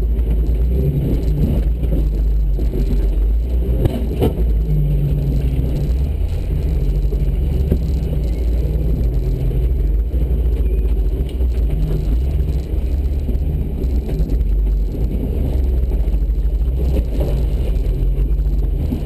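Jeep engine running at low revs as the Jeep crawls over rocks in low range, a steady low rumble heard through the body. A sharp knock about four seconds in.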